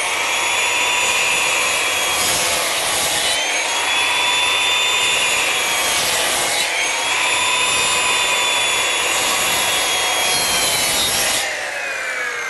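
Circular saw cutting a series of closely spaced shallow kerfs across the end of a board, to clear a half-lap joint. The motor's whine sags and recovers with each pass through the wood. Near the end the trigger is released and the blade spins down with a falling whine.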